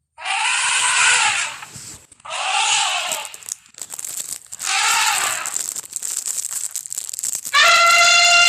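Elephant trumpeting: three short, rasping trumpet calls that rise and fall in pitch, then a louder, longer, steadier trumpet blast near the end.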